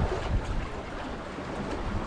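Wind rumbling on the microphone in uneven gusts over the wash of the sea against concrete breakwater blocks.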